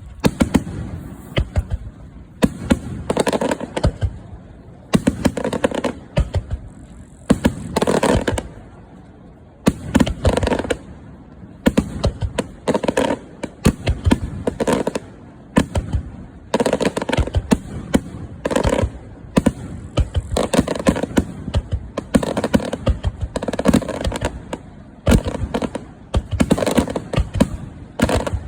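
Aerial fireworks display: shells bursting in quick volleys, with sharp bangs every second or two and crackling between them.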